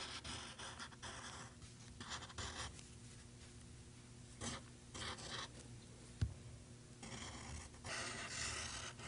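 Pencil tracing over a drawing laid on transfer paper, pressed hard so the lines come through: faint scratching strokes on paper that come and go with short pauses, and one light knock about six seconds in.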